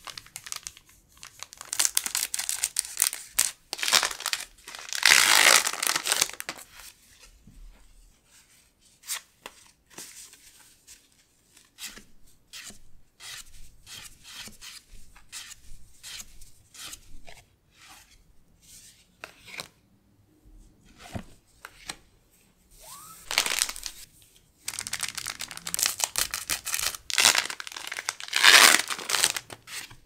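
Foil Pokémon booster pack wrapper crinkling and tearing open, loudest over the first six seconds and again from about 23 seconds in. In between come quieter clicks and slides of trading cards being flicked through by hand.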